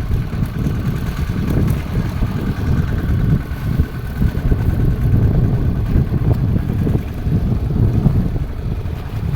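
Fishing boat's engine running steadily, a low, even drone with a faint steady whine above it.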